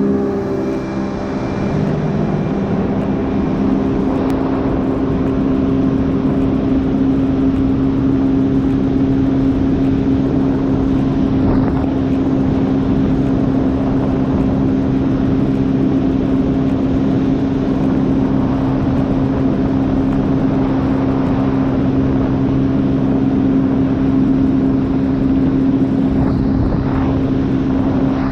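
Jet ski engine running at a steady speed while cruising, a constant hum with a few steady tones over a rushing haze.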